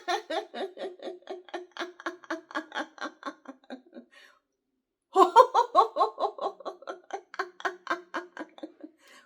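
A woman laughing in quick, rhythmic 'ha-ha-ha' pulses, about five a second, in two long bouts with a pause of about a second between them: deliberate laughter-yoga laughter.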